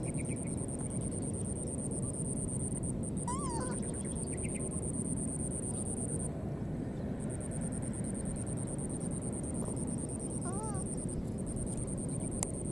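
Insects chirring in a steady, high-pitched pulsing drone that pauses briefly about halfway, over a steady low rumble of noise. A short high squeak that rises and falls comes about three seconds in, and a couple more come near the end, from the baby monkeys.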